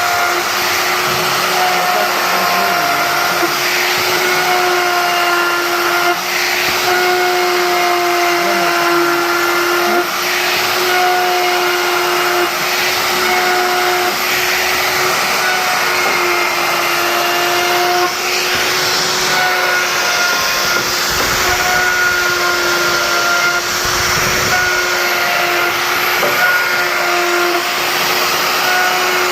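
Electric woodworking power tool motor running steadily with a high whine, its pitch dipping briefly every couple of seconds.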